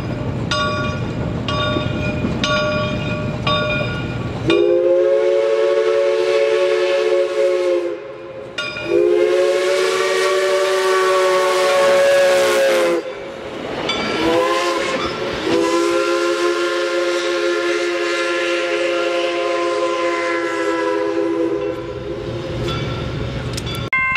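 Reading & Northern 425, a 4-6-2 Pacific steam locomotive, blows its replica CNJ three-chime whistle in the grade-crossing pattern as it passes close: long, long, short, long. Before the whistle, a ringing repeats about every 0.7 seconds over the low rumble of the approaching engine.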